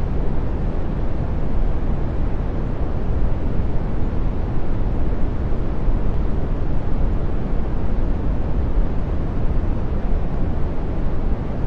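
Brown noise, a deep and soft steady hiss, strongest in the bass and thinning out toward the treble, with no changes or events.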